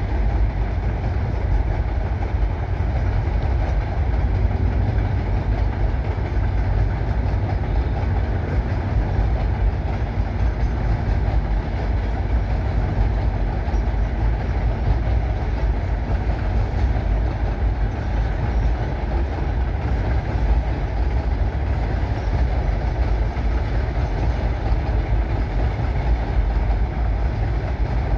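Coal train rolling past, a steady rumble of its cars on the rails.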